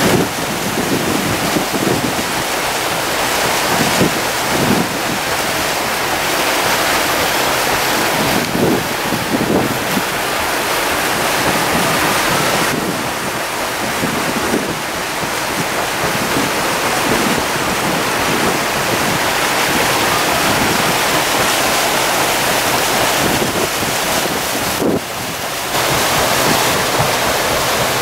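Wind buffeting the microphone over a steady rush of water from the moving paddle boat. The noise shifts abruptly a few times.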